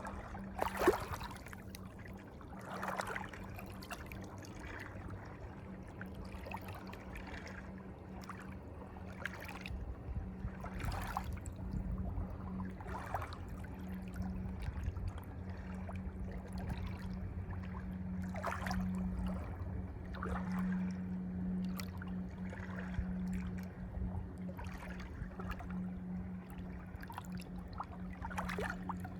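Water trickling and lapping, with a sharp splash about a second in and scattered smaller splashes, over a steady low hum.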